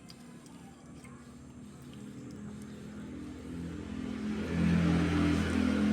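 A motor vehicle's engine growing steadily louder, as if approaching, and loudest near the end.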